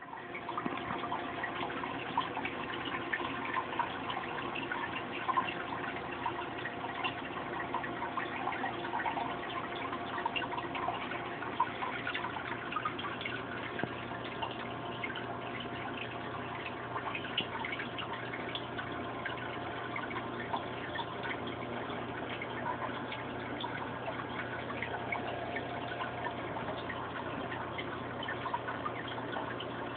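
Aquarium filter's outflow pouring into a turtle tank: a steady run of trickling, splashing water with small drips, over a faint steady hum.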